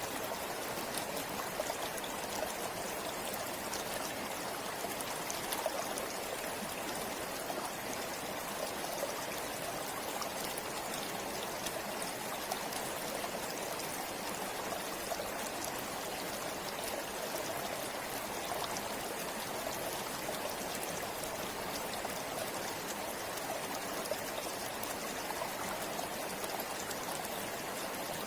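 A river flowing steadily over rocks, a constant rushing and splashing with small droplet ticks.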